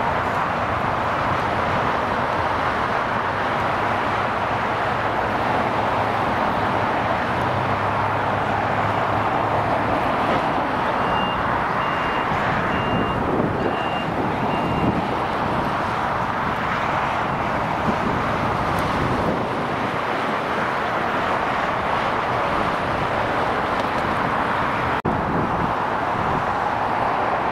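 Steady jet engine noise from an El Al Boeing 787 Dreamliner taxiing at low power. A short run of high beeps, about six, sounds midway.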